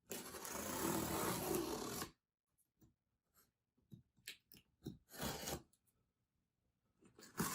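Cardboard shipping box being opened: a rasping tear lasting about two seconds, then scattered light knocks and rustles of cardboard.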